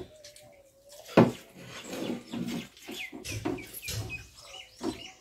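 People eating rice with their hands from steel plates: chewing and lip smacks, with fingers working food on the plates and a sharp knock about a second in. A few short, high, falling chirps come in the middle.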